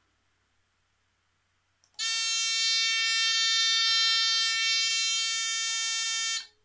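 Small electronic buzzer driven by an Arduino Uno's digital output, sounding the alarm as it is tested. It gives one loud, steady, shrill tone that starts about two seconds in, holds its pitch for about four and a half seconds and cuts off suddenly.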